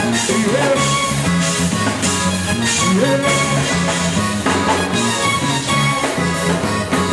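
Zydeco band playing live without vocals, with a steady drum beat and a repeating bass line under the lead instruments.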